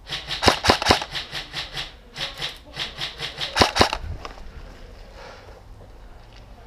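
Airsoft gunfire: a rapid, uneven string of sharp shots for about four seconds, a few of them much louder and close by, then it stops.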